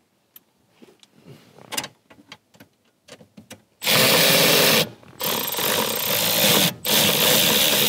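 Cordless drill/driver spinning in three bursts after a few light handling clicks: one short run, then two longer ones with brief pauses between. It is set to reverse (undoing), so the bolt it is meant to tighten won't start.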